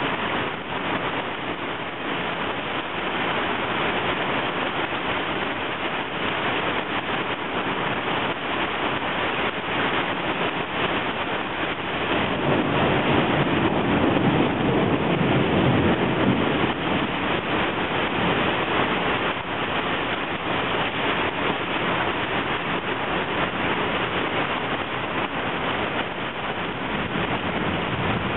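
Heavy rain pouring down onto a flooding street as a steady, even hiss. It swells louder for a few seconds about halfway through.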